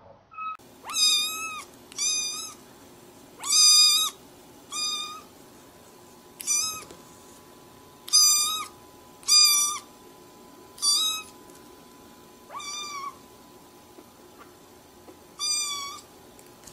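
A small black kitten meowing over and over: about ten short, high-pitched cries, spaced a second or two apart.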